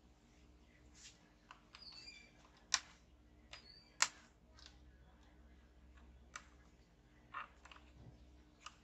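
Ethernet (LAN) cable being handled and its RJ45 plug pushed into a laptop's network port: a series of faint clicks and taps, with two sharper clicks about three and four seconds in.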